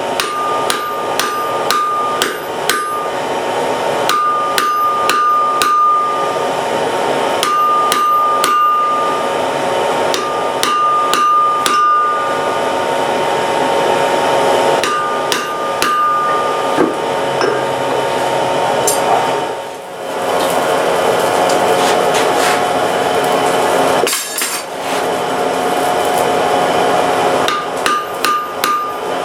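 Hammer striking iron on an anvil in runs of rapid blows with short pauses between, each run leaving a high, clear ring from the anvil, over a steady whir.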